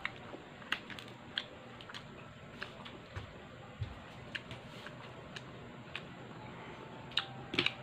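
Balut eggshell being cracked and picked off by fingers: scattered small clicks and crackles, a few in quick succession near the end.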